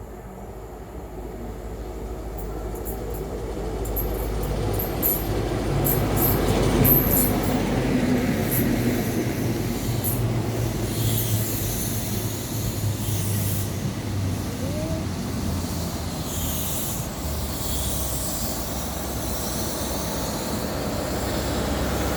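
A train running along the track, getting louder over the first several seconds and then holding steady, with a steady low hum and high wheel squeals and clicks.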